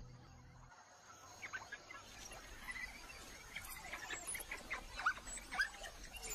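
Faint, scattered short high chirps and twitters, many in quick succession, over quiet bush ambience. The tail of a music track fades out in the first second.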